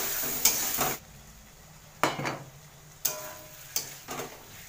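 Potatoes and spice paste frying in a metal wok, sizzling while a metal spatula stirs and scrapes the pan. The sizzle cuts off suddenly about a second in, leaving a few separate spatula scrapes against the metal.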